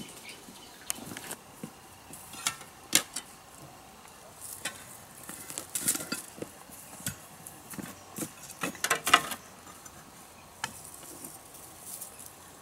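Irregular scrapes and knocks of a hand tool digging and scraping into soil, with a cluster of louder strikes near the middle and again past two-thirds of the way through.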